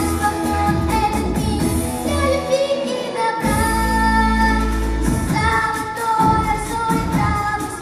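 Live pop music with a woman singing over a backing track of bass and beat, held sung notes throughout.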